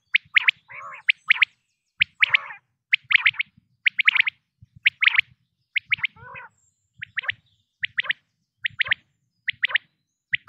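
Quail calling over and over in quick, sharp phrases of two to four high notes, about one phrase a second. Some phrases carry a lower, rougher note beneath them.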